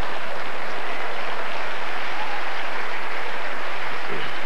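Audience applauding, a dense steady clapping with no break.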